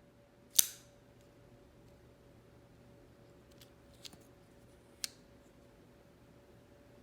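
Tac-Force spring-assisted folding pocket knife being worked: one loud, sharp metallic snap with a brief ring about half a second in as the blade springs open, then a few fainter clicks around four and five seconds in.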